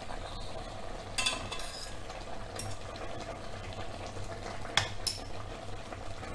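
A spatula stirring and scraping through a pan of sauce cooking on the stove, with a few short scrapes against the pan about a second in and twice near the end.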